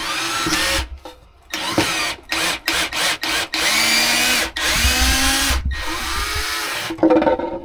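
Cordless drill/driver backing screws out of a wooden shelf, run in a series of short and longer bursts with several quick blips in the middle. Its motor whine climbs as it spins up.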